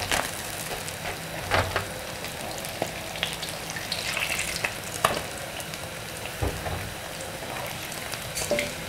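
Tilapia sizzling as it deep-fries in a wok of hot oil, fully cooked and crisp, with a few knocks of a wooden spatula against the pan as the pieces are lifted out.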